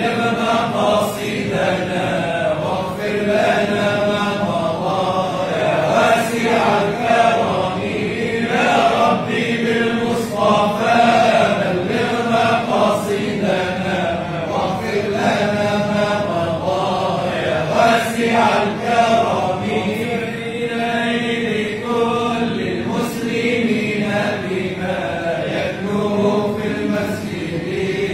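A group of men chanting together without pause: a devotional Mawlid chant in praise of the Prophet Muhammad.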